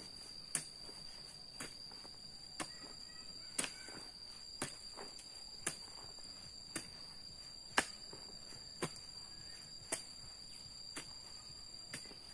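Sharp knocks at an even pace of about one a second, like strokes of a hand tool, over a steady high-pitched insect drone.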